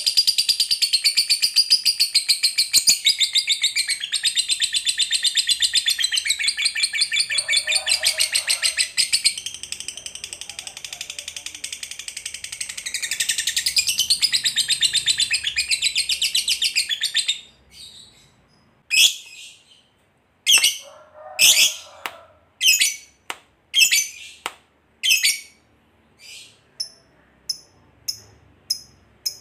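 Fischer's lovebird giving its long 'ngekek' chatter: a continuous, very fast, high-pitched rattling trill for about seventeen seconds. It then breaks into separate short shrill calls about once a second, quickening near the end.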